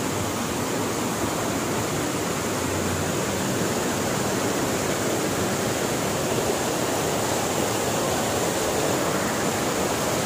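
Steady rush of a rocky mountain stream, white water pouring over boulders below a waterfall.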